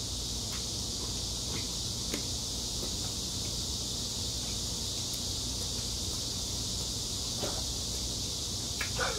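A steady high-pitched hiss, like an insect drone, runs throughout. Over it come a few faint scattered clicks and crackles of a cooked shrimp's shell being peeled by hand.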